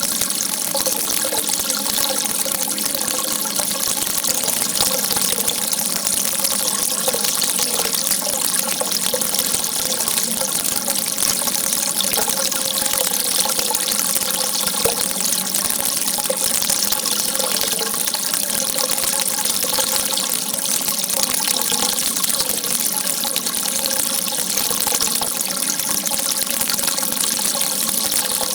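Water rushing steadily in an even, unbroken stream.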